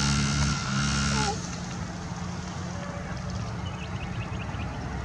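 Yamaha PW50's single-cylinder two-stroke engine running under throttle, then easing off a little over a second in to a quieter, lower note as the bike carries on.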